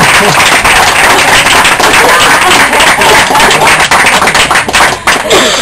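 Audience applauding: dense, loud clapping from many hands that begins to thin out near the end.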